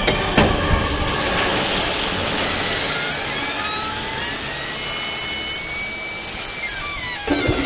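A steady hissing wash of noise, an ambient passage in a raw black metal recording, with faint high tones gliding up and down through it. Heavier, lower sound comes back in near the end.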